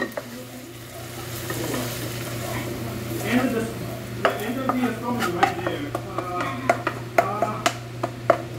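Wooden spatula scraping and knocking in a nonstick frying pan as butter-fried shrimp are scraped out, with the hot butter still sizzling. The knocks come thick and fast in the second half, as the pan is scraped clean and tipped, over a steady low hum.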